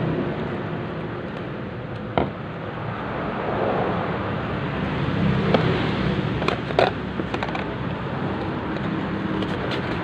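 A steady low rumble of background noise, with a few short sharp clicks about two seconds in and again several times between about five and seven seconds in.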